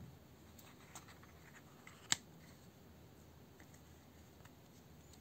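A few sharp clicks as a Samsung Galaxy S20 is pressed into a black phone case, the edges of the case snapping over the phone's frame; the loudest click comes about two seconds in.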